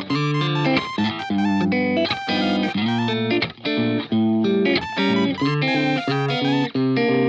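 Background music: a plucked guitar playing a quick run of notes with a steady bass line.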